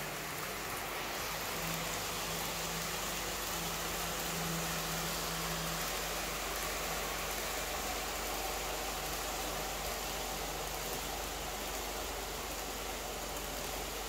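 Steady rolling hiss of a long Kato N scale container train running along the track, with a faint low hum that wavers in pitch.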